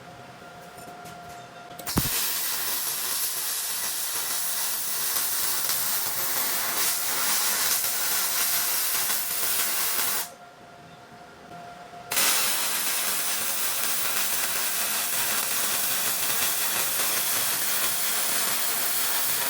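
Plasma cutter cutting steel plate: a steady hiss that starts sharply with a click, runs about eight seconds, stops, then starts again for a second long cut.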